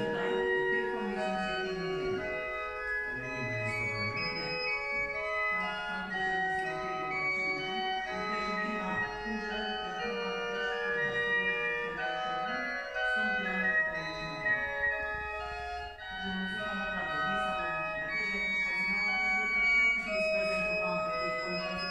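Organ music: held chords with a slowly moving lower line.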